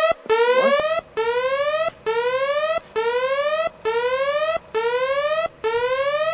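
Electronic klaxon-style alarm sounding a steady series of rising whoops, about seven in all, each lasting under a second with a short gap between, a critical-warning alert.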